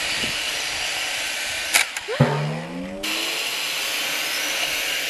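Red six-rotor toy drone's rotors whirring in a steady high buzz as it hovers just off the ground. A little under two seconds in there is a sharp knock, then a short falling whine. The drone is struggling to fly, which the owner puts down to a blade that isn't right.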